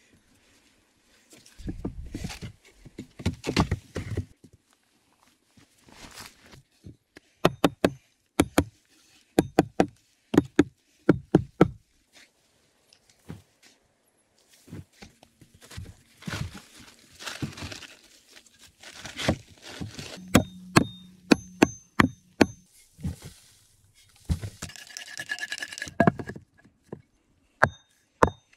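Irregular knocks and thuds of hand work on wooden logs, with stretches of scraping and digging in sandy soil, and hatchet blows knocking round poles into place near the end.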